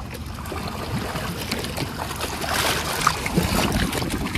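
Pool water splashing and sloshing as children wade and slap at it, with a louder splash about two-thirds of the way through.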